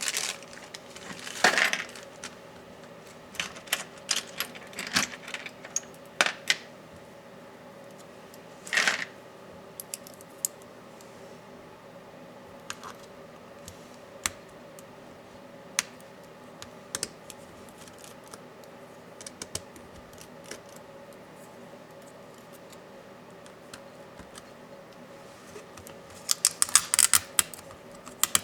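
Small clicks, taps and light clatter of laptop parts, screws and small tools being handled on a work surface while a Dell Latitude 7410 is taken apart. The clicks are scattered, with a few brief flurries of rapid clicking, the longest near the end.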